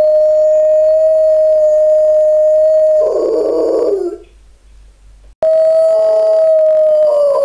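Rottweiler howling: one long, steady high note that turns rough and falls away about three seconds in. After a short pause another long howl starts abruptly.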